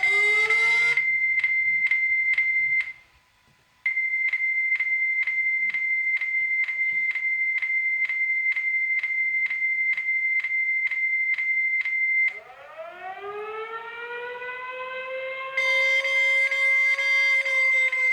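Mock emergency-alert alarm: a steady high-pitched tone pulsed by even clicks about three times a second, cutting out briefly about three seconds in. About twelve seconds in, a civil-defense-style siren winds up and holds its pitch, and the high tone comes back on top of it.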